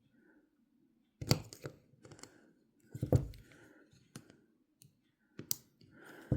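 Sharp metal clicks and taps from pliers and small reel parts as a tiny C-clip is pressed onto a post on a spincast reel's oscillation plate. Half a dozen separate clicks, the loudest about a second in and about three seconds in, with light handling noise between them.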